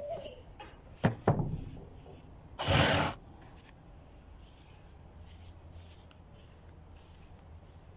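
A plastic chair being handled: two sharp knocks about a second in, then a harsh scrape lasting about half a second.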